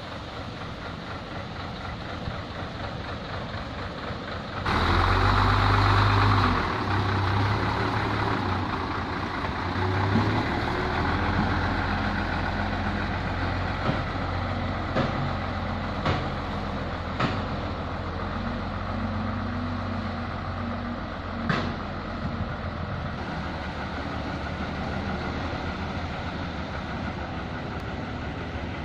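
Heavy diesel engines of asphalt paving machinery and trucks running steadily. The sound gets louder about five seconds in, and a few sharp knocks come through later.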